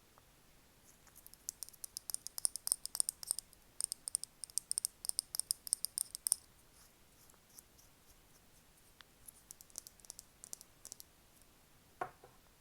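Quick, crisp ASMR tapping clicks in dense runs. A fainter run follows, and one duller knock comes near the end.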